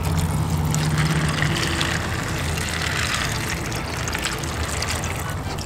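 Water poured in a thin stream from a pitcher onto dry beans in a plastic bowl, splashing and trickling steadily as the beans are covered to soak. A low steady hum runs underneath.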